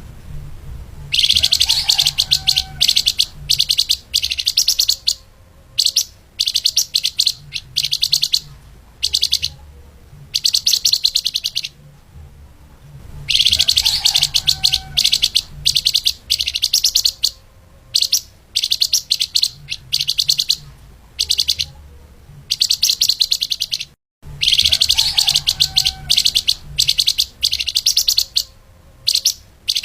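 Flamboyan (lemahan) songbird singing a fast, dense chattering song of high, rapid chirps. The song comes in bursts of one to four seconds with short pauses between them, and the longest runs start about a second in, around 13 s in and around 24 s in. A faint low hum sits underneath.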